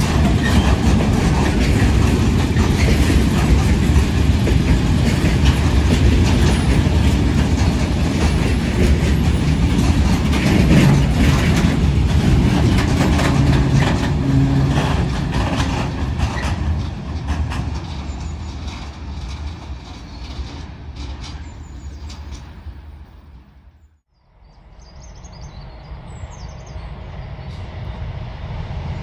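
Freight train of covered and tank wagons rolling past close by, its wheels rumbling and clattering on the rails. The sound fades away as the train moves off. After a brief break, another train is heard approaching, growing louder near the end.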